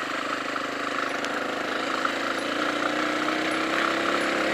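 Small dual-sport motorcycle engine running under way, its pitch and loudness rising slowly as the bike speeds up.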